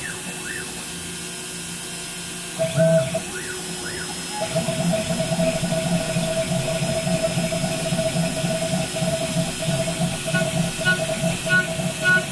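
The 800 W spindle of a CNC 3020 router runs a small four-flute end mill through 6061 aluminium round stock: a steady whine over a low cutting drone. Early on the cut eases off, with a few short rising chirps from the axis motors moving. Full cutting resumes about four seconds in, and the sound pulses about twice a second near the end.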